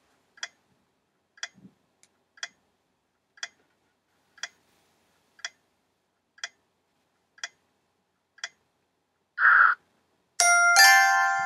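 Quiz countdown timer sound effect ticking once a second, nine ticks, then a brief noisy burst and a bright bell-like chime that rings out as time runs out.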